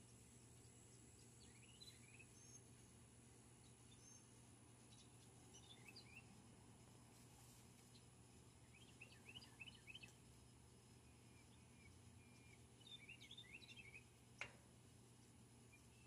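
Faint chirps of small songbirds, scattered and then in short flurries about nine and thirteen seconds in, over a low steady hum. A single sharp click sounds near the end.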